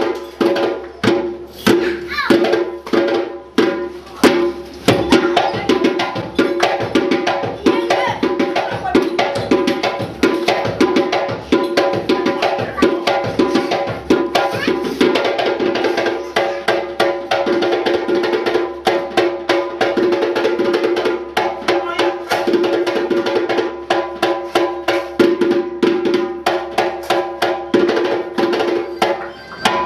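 African drumming music: fast, dense drum strokes with a steady held note underneath.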